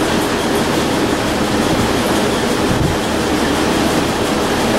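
Riding lawn mower engine running steadily under load of its own idle, a loud, even mechanical noise.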